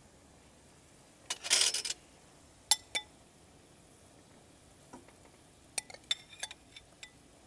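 Tomatoes going into a pot of boiling tom yum broth: a brief splash about a second and a half in, then two sharp clinks of a utensil against the pot and a few lighter taps later on.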